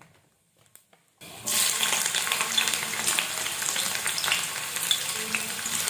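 Hot oil in a kadai sizzling and crackling as whole spices and onion fry in it, starting suddenly about a second in.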